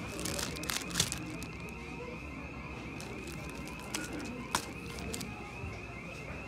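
Clear plastic blister packaging crinkling and clicking as it is handled and hung back on a metal display peg, with the sharpest clicks about a second in and again near the end. Behind it a steady, fast-warbling electronic tone keeps sounding.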